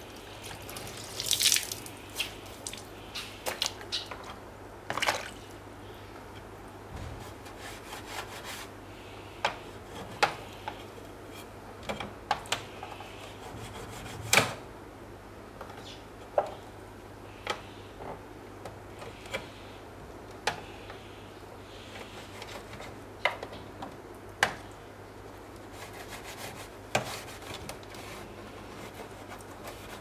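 Cleaning the inside of a refrigerator door: wet cloth rubbing, with scattered light knocks and clicks against the plastic door shelves.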